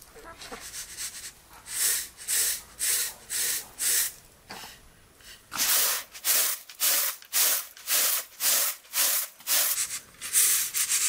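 Loose grain swishing and rasping across a round metal tray as it is shaken back and forth to clean it. There are about two strokes a second, softer at first and louder from about halfway in.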